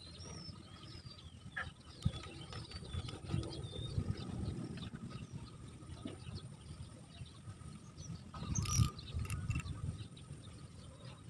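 Small birds chirping and twittering in quick, curling calls, mostly in the first half. Under them are low knocks and rustles from hands working a spinning rod and reel close to the microphone, with a sharper scraping burst about two-thirds of the way through.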